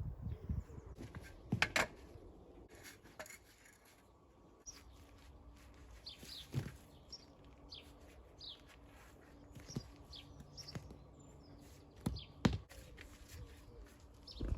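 Small birds chirping, with short falling calls scattered through the middle. Two sharp knocks stand out, one about two seconds in and one near the end.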